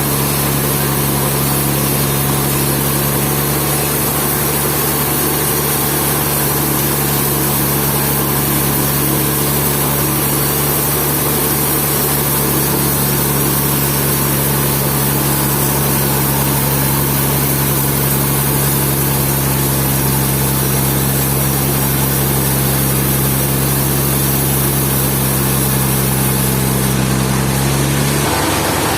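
Sawmill machinery running steadily with a constant engine-like hum over a broad mechanical noise. The hum stops abruptly and the sound changes near the end.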